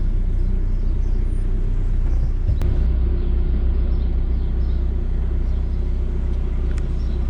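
VW T4 campervan's engine running, heard from inside the cab: a steady low rumble.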